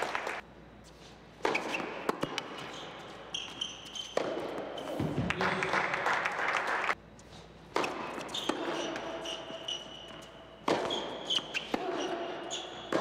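Tennis ball bouncing on an indoor hard court and struck by racquets, with short high squeaks from shoes on the court. The sound cuts off abruptly several times, with brief quieter stretches in between.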